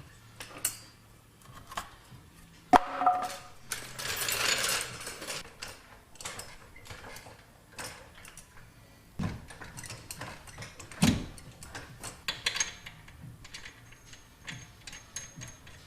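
Clinks, knocks and rattles of hand tools and metal suspension parts while a rear coilover is jacked up and bolted into a car. The loudest is a sharp knock about three seconds in, followed by a rasping burst lasting about a second, with more knocks later.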